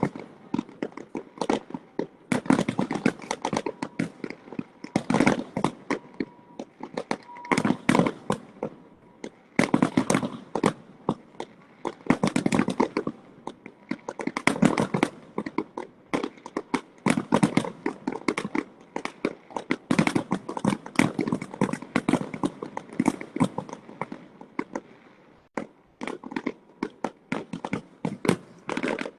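Fireworks display: a dense, continuous run of bangs and crackling, many reports a second overlapping one another, with a short lull about 25 seconds in before the bangs resume.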